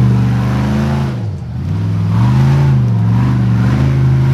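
Engine of an off-road buggy revving up and down as it churns through mud. Its pitch dips about a second in, then rises and falls twice.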